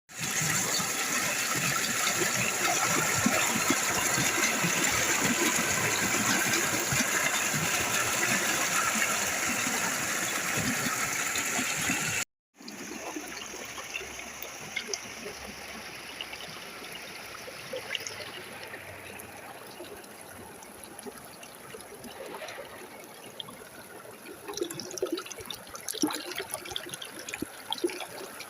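Flowing water: a loud, steady rush for about twelve seconds, then, after a brief cut, a quieter trickling flow with irregular splashes near the end.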